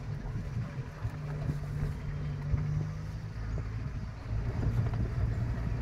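Engine of an open-top safari vehicle running as it drives over a rough dirt track, with scattered knocks and rattles from the bumps. The engine gets louder about four seconds in.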